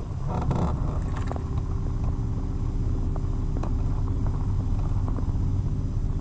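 Bass boat motor running steadily, a low rumble with a constant hum. There is a brief handling rustle right at the start.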